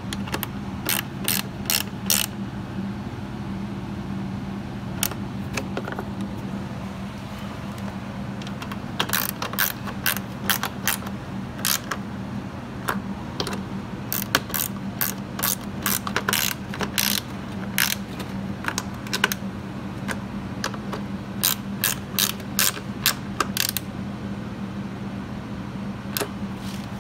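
Hand ratchet clicking in short runs of quick clicks with pauses between, as nuts are snugged down onto plastic studs. A steady low hum runs underneath.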